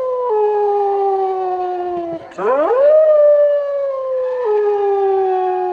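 A canine howl, as a horror sound effect: one long howl slowly sinking in pitch with a sudden step down, then a brief break and a second howl that swoops up steeply and slowly sinks again, with another sudden drop in pitch near the end.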